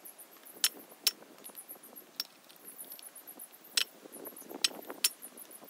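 A handful of sharp, irregularly spaced metal clinks as hand tools knock against the metal body of a scroll AC compressor during teardown.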